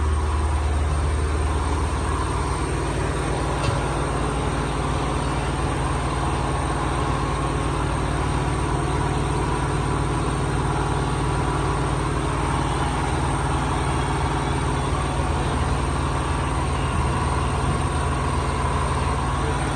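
Car engine idling steadily, with a single faint click about four seconds in.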